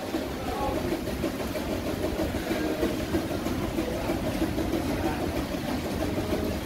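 A steady low rumble with indistinct murmuring voices over it.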